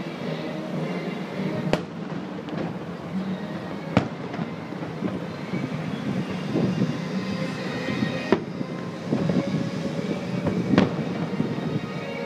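Distant aerial fireworks shells bursting: about four sharp booms a couple of seconds apart, with softer pops between, over a steady low rumble.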